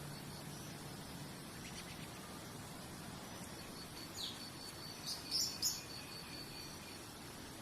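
Nature ambience: a steady high-pitched insect trill over a low hiss, with a bird giving a falling chirp about four seconds in and then three short, sharp chirps a second later.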